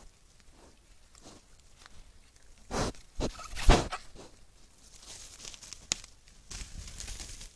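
Wild boars rooting and shuffling through dry leaf litter close to the trail camera: soft rustles, then a few loud scuffs and crunches about three to four seconds in, a sharp click near six seconds and more rustling near the end.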